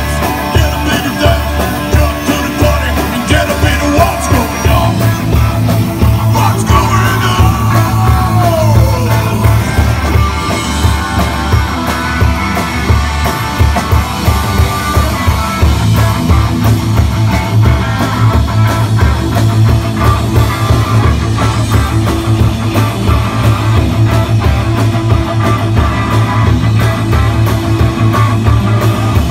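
Rock band playing live: electric guitars, bass guitar and a drum kit, loud and continuous, with a few bending guitar or vocal notes a few seconds in.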